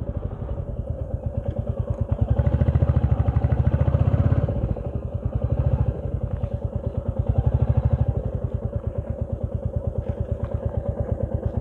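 Motorcycle engine heard from the rider's own bike, running at low speed with an even pulse of firing strokes. It swells twice, about two seconds in and again about seven and a half seconds in, and eases back toward idle between and after.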